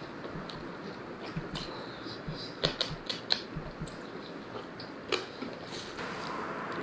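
A man chewing cooked turkey meat off the bone, with a few sharp mouth smacks, the loudest about two and a half, three and five seconds in, over a steady hiss.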